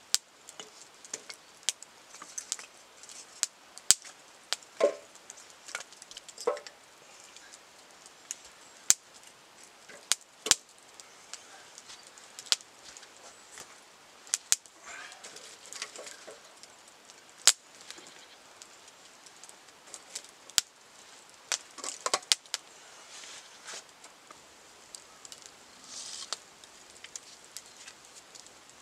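Wood fire crackling with sharp, irregular pops, and a few knocks of firewood being handled.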